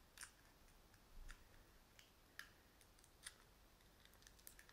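Faint crinkling of thin foil being peeled off a Kinder Surprise chocolate egg by hand: a few short crackles about a second apart.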